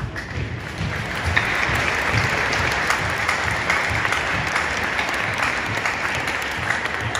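Spectators applauding and cheering in a large gymnasium, building up about a second in and staying steady, with the drill team's marching steps thudding regularly on the wooden floor underneath.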